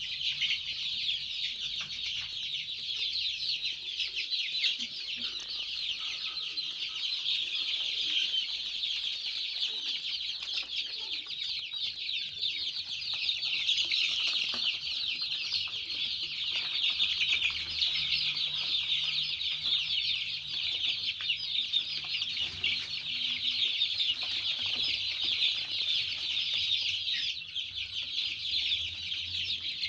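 A large flock of 19-day-old joper (ayam kampung super) chicks peeping continuously, many high calls overlapping into one dense chorus.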